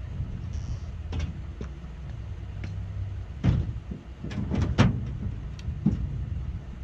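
Knocks and thuds of gear being handled in a pickup truck's bed, several in quick succession about halfway through, over a low steady rumble.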